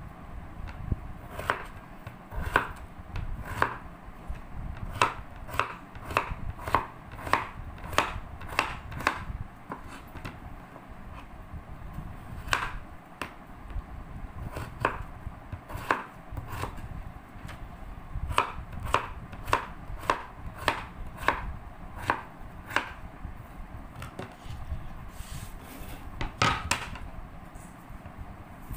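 Knife chopping vegetables on a cutting board: runs of sharp, even strokes a little under two a second, with brief pauses between runs.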